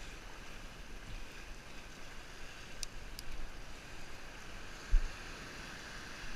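Steady wash of sea and wind noise, with a single brief low thump about five seconds in.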